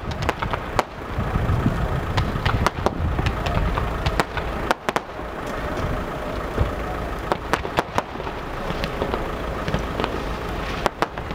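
Fireworks going off: irregular sharp bangs and crackles from bursting aerial shells, over a steady low rumbling noise.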